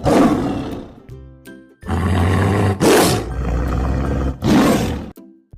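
Cartoon lion sound effect: several loud roars over light background music.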